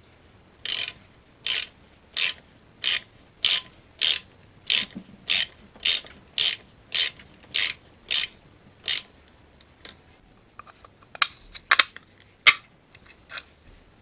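Hand socket ratchet clicking as it drives a metal threaded insert into wood with a hex-drive bit: about fourteen even back-strokes, roughly one and a half a second. After they stop, a few scattered sharper clicks and taps follow near the end.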